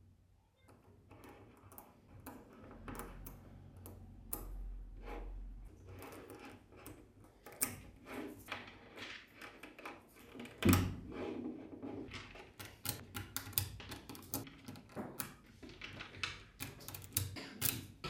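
Tiny 5 mm magnetic balls clicking and snapping together as fingers press them into place, in an irregular run of light clicks. One louder thump comes about ten seconds in.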